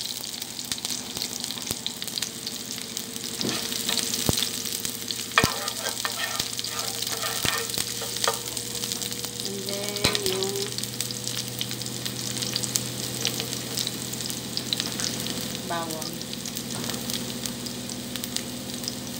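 Sliced onion sizzling steadily in hot olive oil in a frying pan, with occasional sharp crackles.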